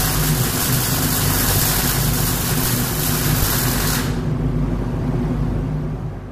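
MIG welding arc running with a loud, dense hiss over a low steady machine hum; the arc cuts off suddenly about four seconds in, and the hum dies away about two seconds later.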